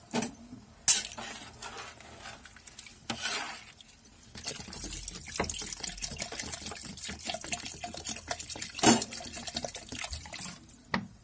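Water pouring from a jug into a steel cooking pot of mutton and masala for biryani, splashing into the liquid. Two sharp knocks, about a second in and near the end, are the loudest sounds.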